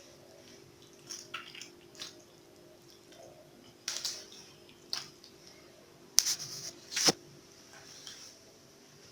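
Pieces of marinated chicken being squeezed and pushed onto a skewer by hand: soft wet squishing with a handful of sharp clicks and knocks, the loudest two near the end.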